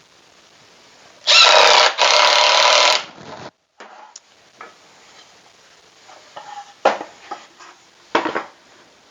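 Power drill running in two bursts with a whining tone, the second about a second long, driving into wood. Afterwards there are scattered knocks and clicks of wooden parts being handled.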